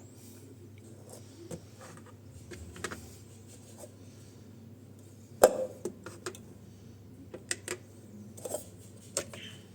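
Scattered clicks and short knocks of the ground-coffee container being handled and weighed on a scale, with one sharper knock about halfway. The grinder motor is not running.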